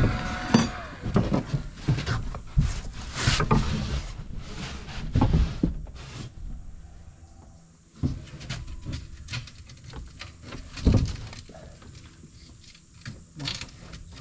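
Irregular knocks and thumps of sheathing panels being handled against the wooden attic framing, a few of them much louder than the rest. A steady machine hum fades out in the first half-second.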